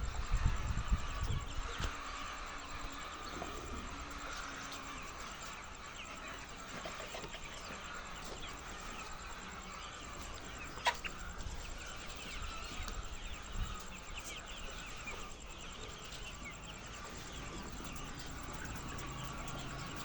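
A flock of laying hens clucking and calling together, a steady din of many overlapping voices. There are a few low knocks at the start and one sharp click about eleven seconds in.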